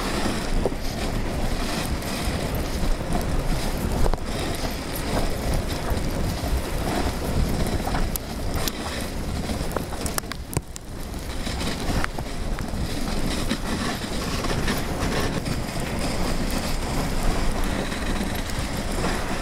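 Dog sled gliding over snow: a steady rough rush of wind on the microphone and the runners on the trail, with small knocks now and then and a brief dip about ten seconds in.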